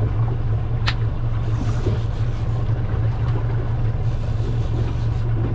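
Boat engine running steadily, a low even hum, with one sharp click about a second in.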